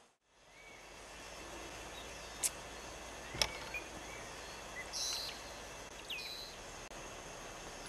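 Outdoor rural ambience: a steady hiss that comes up after a moment of silence, with a couple of sharp clicks and a few short bird chirps in the second half.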